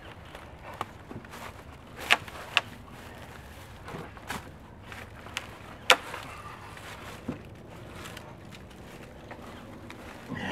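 A few sharp knocks and snaps of dry dead wood over a quiet background, as limbs are grabbed and brush is stepped on. The loudest come about two seconds in, again half a second later, and near six seconds.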